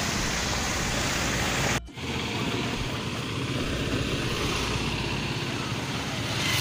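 Steady road and traffic noise heard while riding in an open rickshaw along a street. It drops out for a moment about two seconds in.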